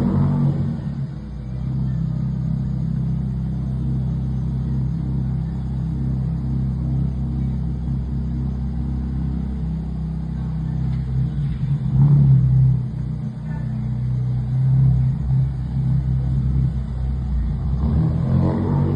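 Fiat Brava's engine through an aftermarket sport exhaust, running with a low, steady rumble. The sound jumps up sharply right at the start, then settles, and the engine is briefly revved about twelve seconds in and again near the end.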